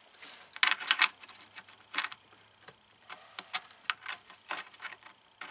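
Light clicks and rattles of a tape measure being handled and held against a cabinet door, with a quick cluster about half a second to a second in, then scattered single clicks.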